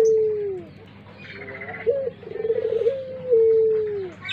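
Puter pelung, a long-voiced barbary dove, cooing. First the tail of a long falling coo. About two seconds in comes a full phrase: a short rising note, a rolling trill, and a long drawn-out note that falls away at the end.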